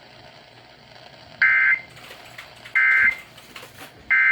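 Emergency Alert System end-of-message signal: three short, identical bursts of buzzy two-tone SAME data, about a second and a third apart. They mark the end of the weather-radio flash flood warning.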